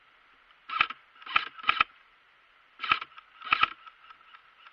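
Airsoft rifle firing five short bursts, each a quick run of two or three shots: three bursts close together about a second in, then two more about three seconds in.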